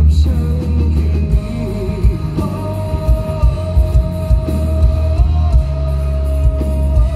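Live rock band playing: a male singer over drums, bass and guitar, with heavy bass and regular drum hits. In the second half a single high note is held for several seconds, wavering briefly.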